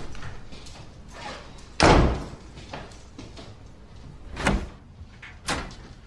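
An interior door shutting with a loud thud about two seconds in, followed by two quieter knocks.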